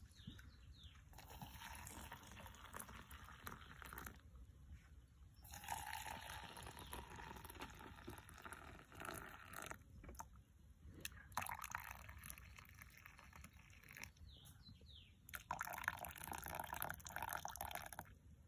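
Hot water poured from an enamel pot into stainless-steel camping mugs of coffee, in four separate pours of a few seconds each with short pauses between.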